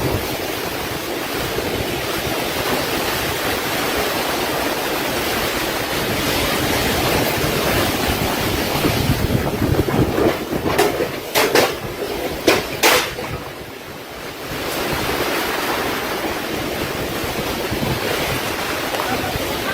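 Storm wind and rain making a steady rushing noise, with wind buffeting the microphone. There are several sharp knocks a little past halfway, and the noise eases for a moment shortly after.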